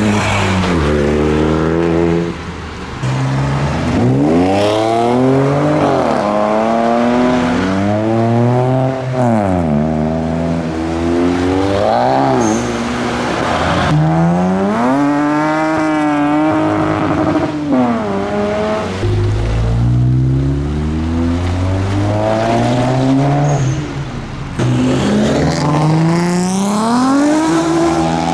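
Modified cars accelerating away one after another, their engines revving up and dropping back with each gear change, over and over.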